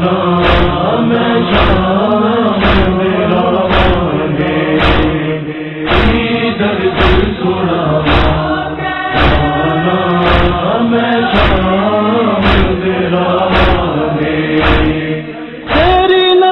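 Noha backing of a chorus chanting a drawn-out lament over a steady beat of about two strikes a second. A louder vocal line comes in near the end.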